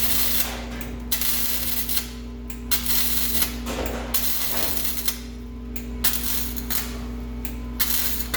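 Welding arc crackling on an exhaust pipe in several short bursts of about a second or less, with brief pauses between them as the joint is tacked and stitched, over a steady low hum.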